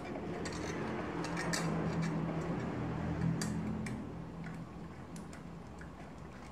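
Light metallic ticks and clicks from hand tools and bolts as a bicycle disc brake rotor is fitted to the wheel hub, over a low hum that swells and then fades after about four seconds.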